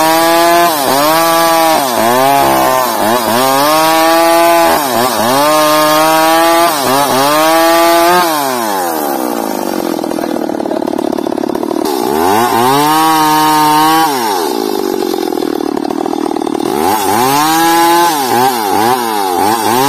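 Two-stroke chainsaw ripping bayur timber into rafters, running at high revs. Its pitch dips and climbs back about once a second as it cuts. It eases to lower revs twice, around 8 seconds in and again around 14 seconds, before picking up the quick dips again near the end.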